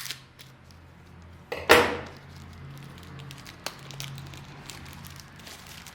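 Plastic accessory packaging being cut open and handled: scattered small clicks and crinkles, with one louder rustle a little under two seconds in.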